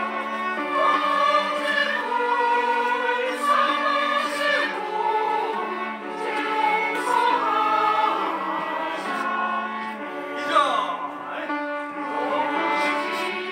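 A choir singing a Christian praise song in a full practice run-through, with long held notes.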